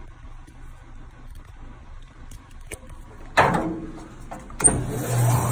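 Two sharp knocks about a second apart, the second a switch click, and then the 1/3 hp Dunlop motor of a restored 12-inch Craftsman 103.24280 band saw starts up and runs with a steady hum and a high whine.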